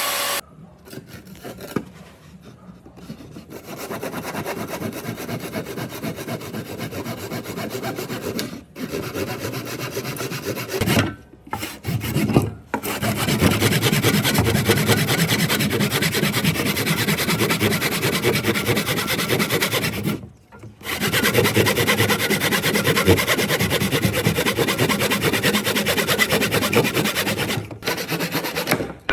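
Hand abrasive work on wood: a continuous rasping scrape in long runs, with a few short pauses and no motor tone.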